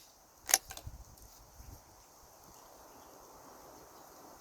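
A single sharp crack about half a second in, followed by a short trailing echo. It is most likely the fifth shot of a group from a Keystone Cricket 722PT .22 rifle. The rest is faint outdoor background.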